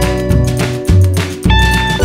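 Instrumental background music led by guitar, with a steady beat.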